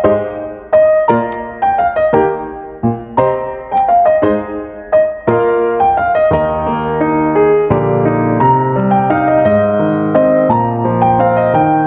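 Piano music: a slow melody of single struck notes that ring and fade, growing fuller with a lower accompaniment from about five seconds in.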